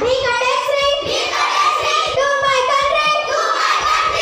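Several children reciting a pledge together in unison, in a drawn-out, sing-song chanting voice without a break.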